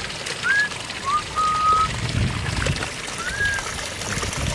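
Water trickling and sloshing in shallow muddy runoff while hands work in it, with several short, thin whistled notes, some rising or falling and one held longer.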